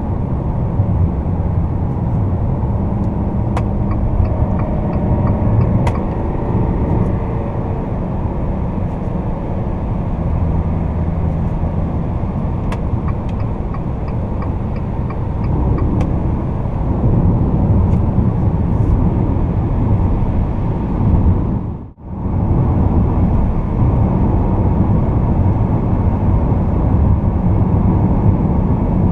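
Fiat Toro's 2.0 turbodiesel four-cylinder engine and tyre and road noise, heard inside the cabin while cruising at about 100 km/h. The sound drops out abruptly for a moment about 22 seconds in.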